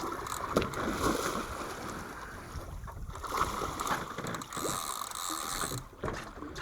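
Water sloshing and splashing at the side of a small boat, with a few short knocks.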